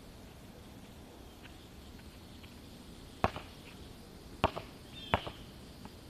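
A basketball bouncing three times on an outdoor asphalt court, sharp slaps about a second apart in the second half, each followed by a fainter click. Faint bird chirps sound in the background.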